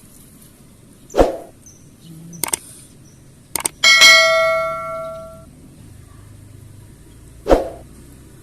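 A metal object struck once, ringing clearly and fading over about a second and a half, with a few sharp clicks just before it and dull knocks about a second in and near the end.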